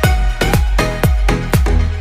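Electronic dance music with a steady, punchy kick drum about two beats a second under sustained synth tones.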